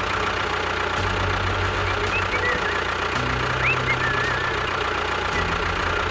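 Small engine running at idle, its pitch shifting a little about a second in and again about three seconds in.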